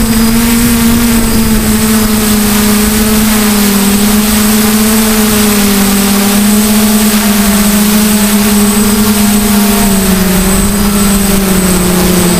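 DJI F450 quadcopter's electric motors and propellers buzzing steadily in flight, heard close from the camera on board, the pitch wavering a little with the throttle.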